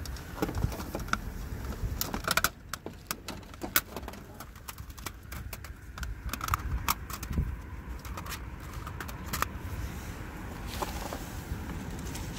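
Scattered light clicks and taps of chopsticks and fried fish being handled on a plastic tray and kitchen paper, over a steady low rumble.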